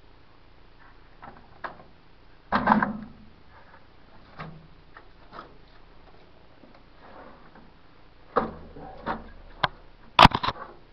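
Scattered clicks and knocks of a rock hammer and gear being handled against rock. A longer knock comes about two and a half seconds in, and the loudest, a quick cluster of sharp knocks, comes about ten seconds in.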